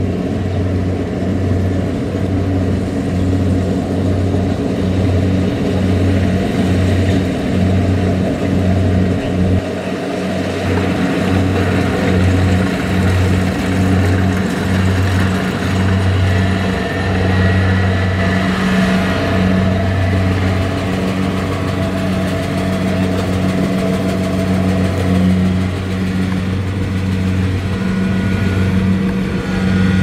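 Kubota DC-70 combine harvester running while harvesting rice: a steady low engine drone over a constant rush of machinery noise, dipping briefly about a third of the way in.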